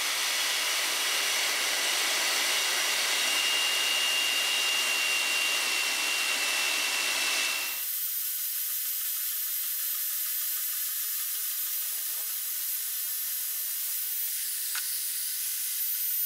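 Milwaukee portable band saw cutting through 1.5-inch, 1/8-inch-wall mild steel round tube, a steady hissing cut. About eight seconds in the sound changes suddenly to a thinner, higher hiss with a faint high whine.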